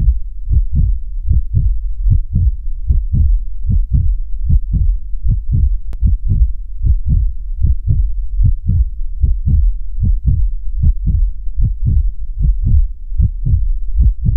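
Heartbeat: steady, low double thumps, about 75 beats a minute, stopping abruptly at the end.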